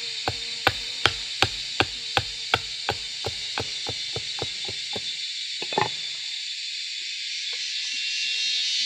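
Hatchet chopping a wooden stick on a log: a steady run of sharp knocks, nearly three a second, getting quicker and lighter, then a louder double knock about six seconds in, after which the chopping stops. A steady high hiss runs underneath.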